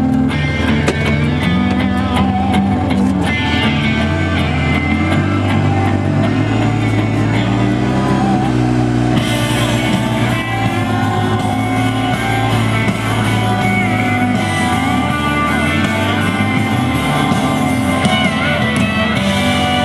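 Rock music with electric guitar and some singing.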